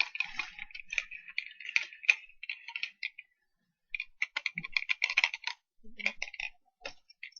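Rapid clicking and tapping on a laptop keyboard: a dense run of key clicks, a short pause, then more clicks.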